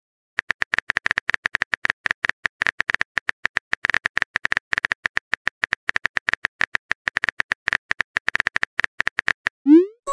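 Smartphone keyboard typing sound effect: rapid, uneven key clicks for about nine seconds as a text message is typed. A rising message chime starts right at the end.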